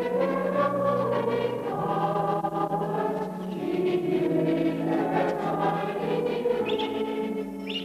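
A congregation of many voices singing a hymn together in parts, holding long notes.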